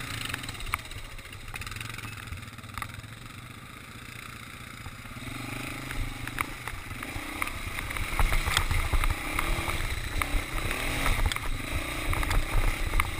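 Yamaha Warrior 350 ATV's single-cylinder engine running under way over a rough forest track, with knocks from the bumps and wind on the mounted camera's microphone. The engine gets louder in the second half as the quad speeds up.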